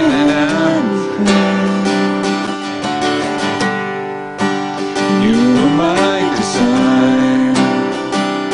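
Strummed acoustic guitar accompanying a man and a woman singing a slow worship song, with long held sung notes.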